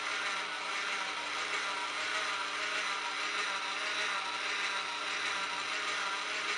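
Small motor running steadily while it turns a wooden broom handle, a continuous mechanical whir with a faint ratcheting rattle.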